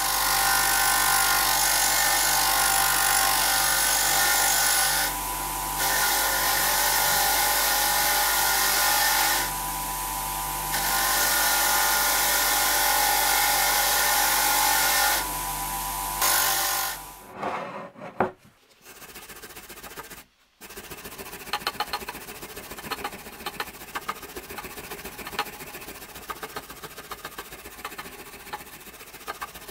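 A bench-mounted motor spinning a wheel against a cast-iron iron, running steadily with a hum and dropping in level three times. After about seventeen seconds it stops, and a short gap later comes quick, rapid scrubbing of a hand brush on the cast iron, the strokes sped up.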